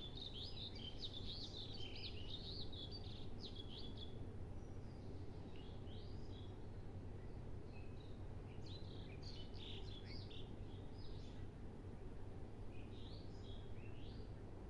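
Small birds chirping in quick twittering bursts, a flurry at the start, more around the middle and a short one near the end, over a steady low background hum.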